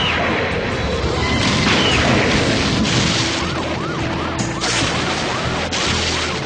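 Soundtrack action effects: a sudden crash, then more crashing noise, and from about two and a half seconds in a police siren wailing in quick repeating rises and falls, over background music.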